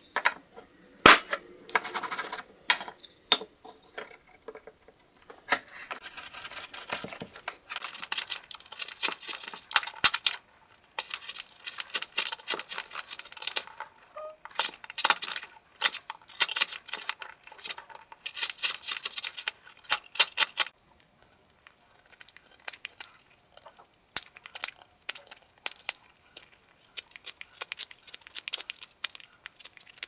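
Swiss Army knife blade carving a wooden spoon by hand: runs of short, sharp scraping cuts as shavings come off the wood, in bursts with brief pauses between.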